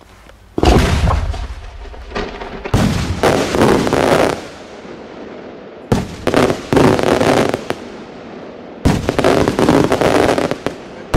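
Big cylinder fireworks shells bursting close overhead: four heavy bangs about three seconds apart, each followed by a second or two of dense crackling and rolling echo.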